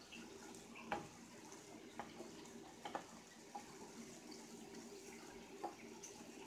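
Chicken simmering in sauce in a cast-iron skillet, a faint steady bubbling and sizzling, while a wooden spoon stirs it and knocks against the pan several times, loudest about a second in.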